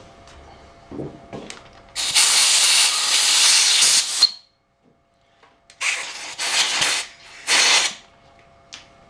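Pressurised spray hissing at the tapped hole in an aluminium housing: one long blast of about two seconds, then, after a pause, three short ones.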